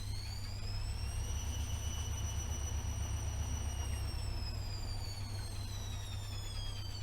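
AEG Öko-Lavamat 76730 washing machine's drum motor whining as the drum spins: the whine climbs over the first two seconds, holds for a couple of seconds, then slowly falls as the drum slows, over a low steady rumble.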